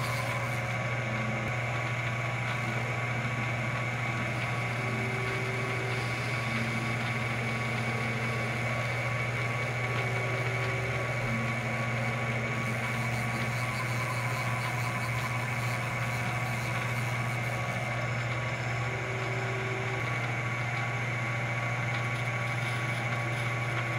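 ShopTask lathe-mill combo's spindle running steadily with the chuck turning a steel bar: a constant low hum with a steady high whine over it.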